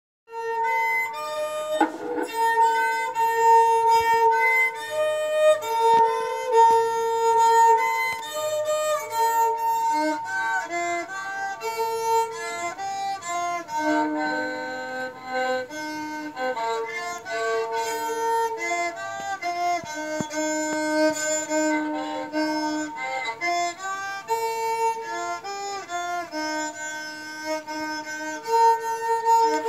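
A folk sarangi, a small bowed fiddle with a carved wooden body and a skin-covered belly, playing a melody of held and stepping notes.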